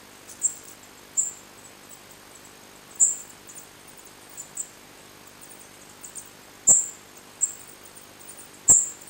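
Fledgling songbirds in the nest giving short, very high-pitched peeps, one every second or so and irregular. The two loudest peeps, about two-thirds of the way through and near the end, come with sharp clicks.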